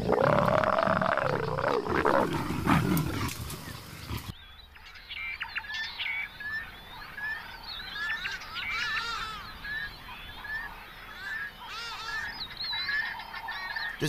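A leopard mating call: a loud growl whose pitch rises and then falls, lasting about four seconds and ending abruptly. After that, birds calling with many short repeated chirps and a few fast trills.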